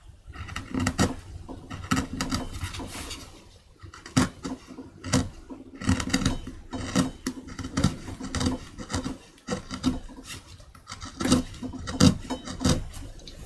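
Hand chisel cutting and scraping wood away from a carved woodblock as the background around the carving is cleared. It makes a run of short, irregular scraping strokes and small knocks, a few each second.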